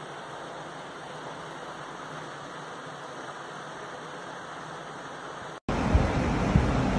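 Tornado 24-inch high-velocity metal drum fan running, a steady rush of moving air. Near the end the sound cuts out for an instant and returns much louder, with the fan's airstream buffeting the microphone.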